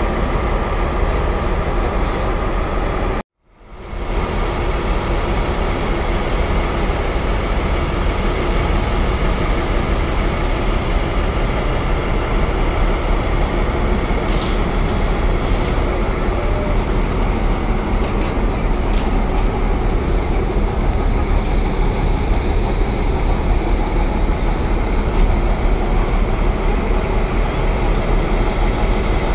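A train running, a loud steady rumble that cuts out for a moment about three seconds in and then fades back up.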